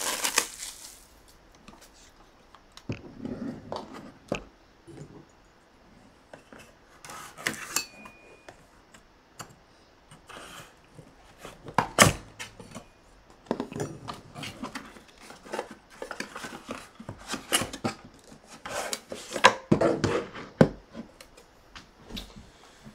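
Scattered clicks, knocks and scraping of a sealed hockey card box being handled and cut open with a knife on a table.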